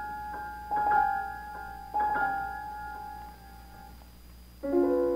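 Solo piano accompaniment in an art song: a few chords struck in the upper middle register about a second apart, their notes held and fading, then a fuller, lower chord struck near the end.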